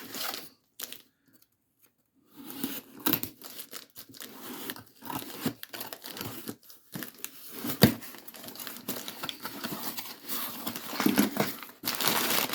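Packaging being torn open and crinkled by hand: irregular tearing and rustling, with a brief pause about a second in and a single sharp snap about eight seconds in.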